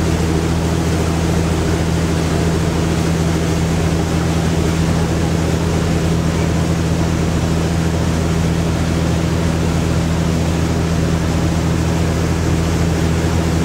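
River express boat's engine running steadily at cruising speed, a constant low drone with an even rushing hiss over it.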